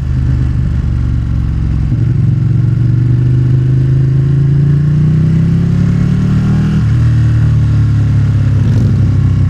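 Motorcycle engine under way, its note rising steadily for several seconds as it accelerates, dropping sharply about seven seconds in, then running steady.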